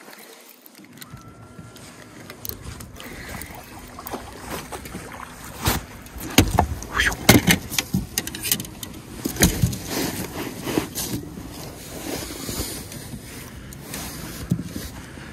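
Knocks and clatter of handling in a small fishing boat over a steady background, starting about six seconds in and coming thick and irregular for several seconds.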